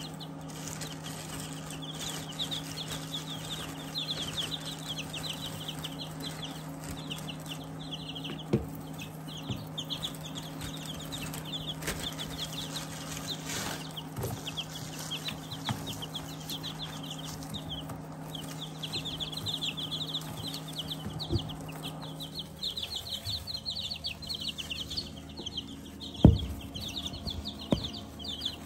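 A brood of young chicks peeping rapidly and continuously. Under it runs a steady low hum that stops about three-quarters of the way through, and a few sharp knocks break in, the loudest near the end.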